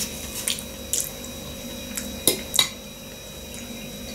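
A person eating potatoes close to the microphone: wet, squishy mouth sounds with a few short clicks and taps, the loudest a little past the middle.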